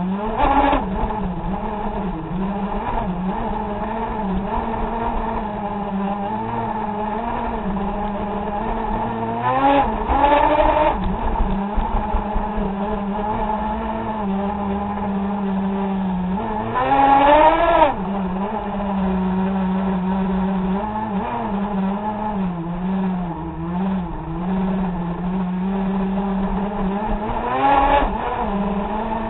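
A radio-controlled car's motor, heard from a camera mounted on the car, running with a steady drone and revving up in rising sweeps four times, about a second in, around a third of the way, past the middle and near the end.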